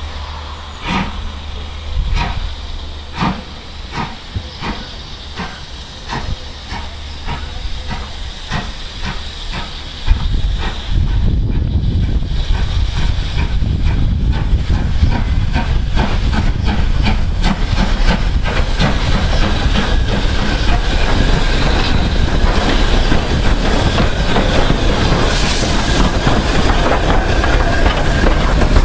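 BR Standard Class 5MT 73096, a two-cylinder 4-6-0 steam locomotive, approaching slowly and passing close by. At first there are slow, uneven beats; about ten seconds in a loud, steady hiss of steam suddenly takes over as the engine draws near.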